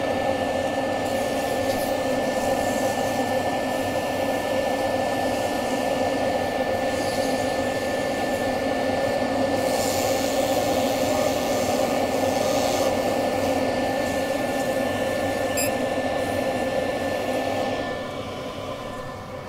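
Wood lathe running with abrasive paper held against the spinning juniper spatula blank: a steady rushing hum with a thin high whine over it. It eases off near the end as the paper is taken away.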